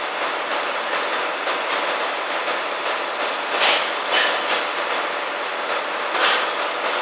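Truck-mounted knuckle-boom crane running steadily as its engine and hydraulics work the lift, with a few metal knocks about three and a half, four and six seconds in.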